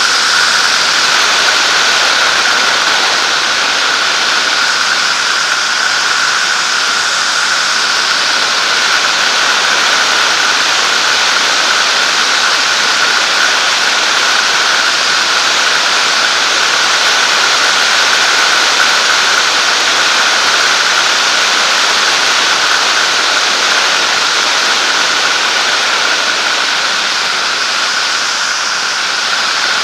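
Zenair 701 light aircraft's engine and propeller running steadily in flight, heard from the cockpit mixed with heavy wind rush, with a constant high-pitched whine over the noise.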